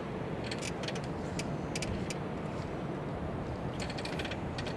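Steady low engine rumble, with scattered short high chirps and clicks coming and going.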